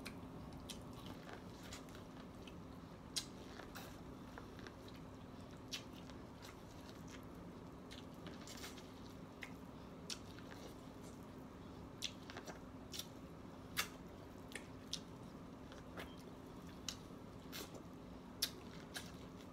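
Biting and chewing kernels off a buttery ear of steamed corn on the cob, in short sharp mouth clicks and smacks at irregular intervals.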